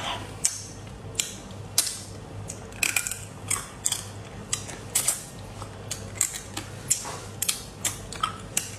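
Crab claw shells cracking and crunching between the teeth while eating, a string of sharp, irregular clicks and snaps.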